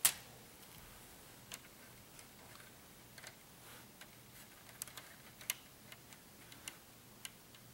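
Hard plastic K'nex parts clicking and tapping as the box and its sliding rod latch are handled: one sharp click right at the start, then a string of lighter, irregular clicks.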